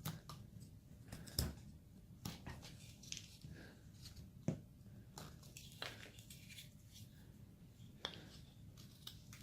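Carving knife slicing small chips off a basswood carving: faint, irregular crisp cuts and clicks, one every half second to second, the sharpest about halfway through.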